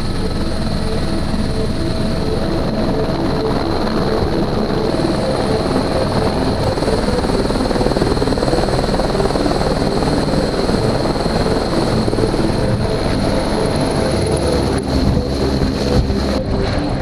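Single-engine AS350 Squirrel helicopter running on the ground close by, its turbine and main rotor turning at flight idle, a dense steady noise with a high whine over it and rotor downwash buffeting the microphone. A few knocks near the end.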